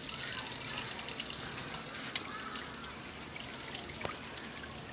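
Water pouring in a steady stream out of the side outlet of a 4-inch PVC pipe elbow, trickling and dripping as it falls: the old water being drained from a hydroponic growing pipe so it can be changed.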